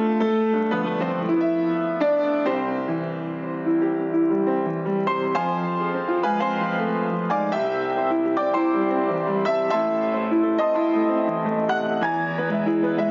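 Piano music playing steadily, a sequence of sustained notes and chords.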